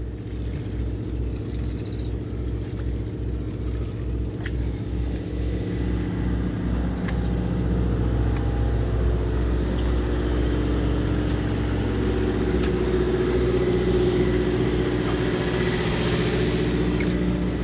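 Fishing boat's engine running steadily, a low hum with a throb that pulses about three times a second at first and then evens out.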